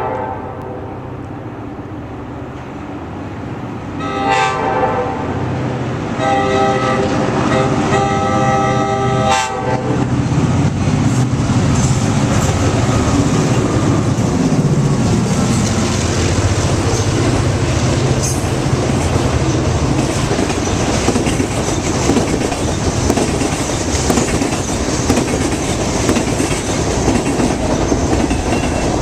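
Diesel freight locomotive's air horn sounding a short blast about four seconds in, then a longer blast of about three seconds. The locomotive's diesel engine then rumbles past close by, followed by freight cars clacking over the rail joints.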